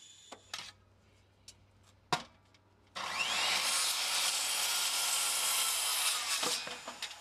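Corded circular saw cutting across a pine framing board, starting about three seconds in, running steadily for about three and a half seconds, then winding down. A few light knocks come before it.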